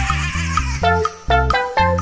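Upbeat children's background music with a bouncing bass and short melody notes, about two beats a second.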